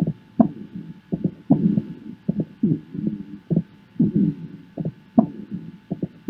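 Chest sounds recorded through a stethoscope: a low, pitched breath sound recurs about once a second, with sharp heartbeat thumps among the breaths.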